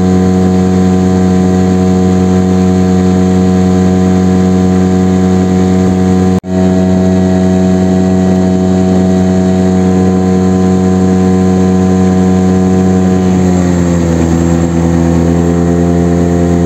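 Outboard motor of a small boat running steadily at a fixed pitch, with a split-second dropout about six and a half seconds in. Near the end its pitch drops and wavers as it is throttled back for shallow water.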